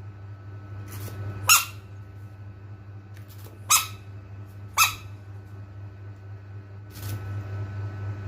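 Three short, sharp squeaks, spaced a second or two apart, over a steady low hum.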